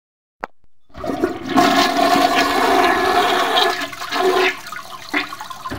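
A toilet flushing: a click about half a second in, then several seconds of loud rushing water that stops abruptly.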